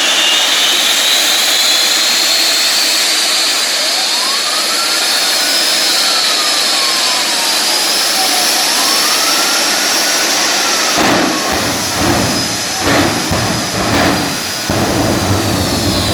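Jet car's turbine engine running with a loud, high whine that climbs slowly, and a lower tone that rises and falls. Irregular bursts of low rumble start about eleven seconds in.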